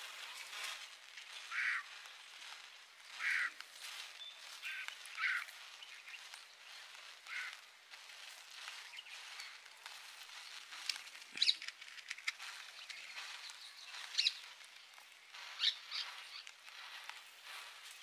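A row of standing matchsticks burning: match heads flaring one after another, with a few sharp crackles later on. Birds chirp now and then in the background.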